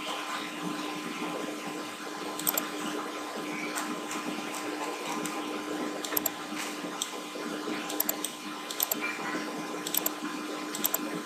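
Computer mouse clicking now and then, several times in quick pairs, over a steady background hum.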